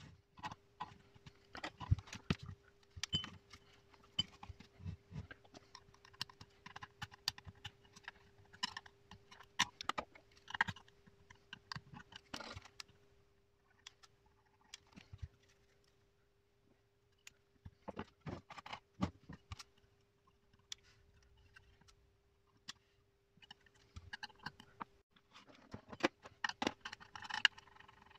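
Clicks, taps and scrapes of hands handling a sheet-metal mounting plate and its small hardware on a workbench, in irregular clusters with quieter stretches in the middle. A faint steady hum runs underneath.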